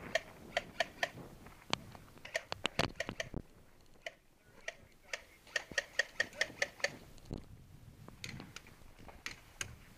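Airsoft fire: irregular runs of sharp ticks, each with a short ringing ping, coming in clusters, the densest about two to three seconds in and again from about five to seven seconds in.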